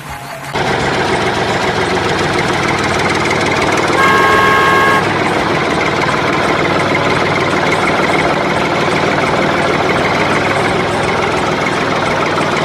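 Loud, steady running of a truck engine, with a horn honking once for about a second about four seconds in.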